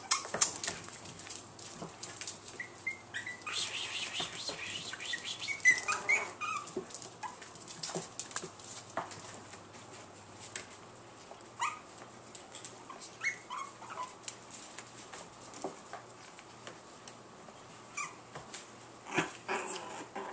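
Chihuahua puppies giving short high-pitched whines and yips, scattered through and busiest a few seconds in and near the end, with small clicks and rustles as they scramble over one another on a blanket in a plastic tub.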